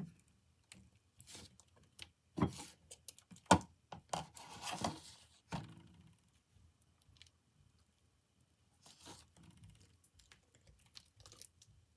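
Homemade glue-and-detergent slime being stretched, pulled and squished by hand over a bowl: soft sticky handling noises in irregular bursts, with sharper clicks, the loudest about three and a half seconds in, and a quieter stretch past the middle.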